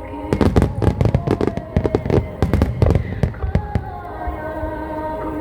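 Fireworks going off in a rapid barrage of bangs and crackles for the first three seconds or so, then thinning out, with music playing along with the display throughout.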